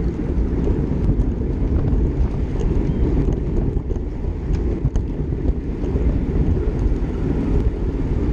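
Wind buffeting the microphone of a bike-mounted camera riding at speed in a road-race bunch, mixed with tyre and road rumble: a steady, dull low rumble, with a few faint ticks above it.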